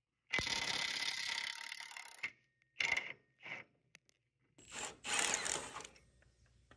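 Ratcheting wrench clicking as it turns a bolt on a mini skid steer's track idler: a run of about two seconds, two short bursts, then another run near the end.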